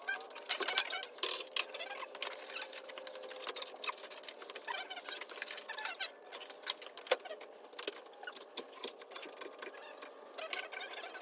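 Hand tools at work on an engine: irregular rapid clicking and clattering of metal on metal, with a faint steady whine in the first few seconds.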